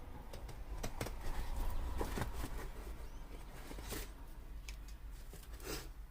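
Scissors cutting through thick puzzle-box cardboard: irregular crunching snips and crackles as the board tears rather than cutting cleanly.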